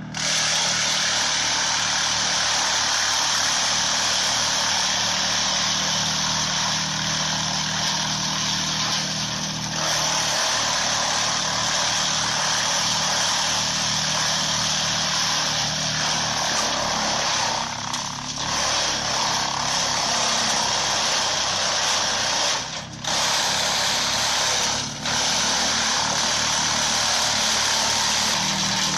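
Flisbjorn wood chipper running under load: a steady engine drone beneath a dense grinding noise of wood being shredded, which dips briefly a few times in the last third.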